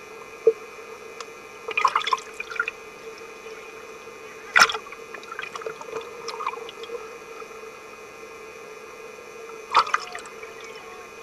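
Swimming-pool water heard underwater: a muffled wash of water over a steady hum, with short splashing bursts about two seconds in and again near the end, and a single sharp click a little before the middle.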